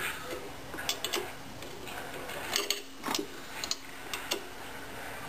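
Small metal clicks and taps from an Allen key working the screws of a fuel pressure regulator adapter, irregular and scattered, some in quick pairs.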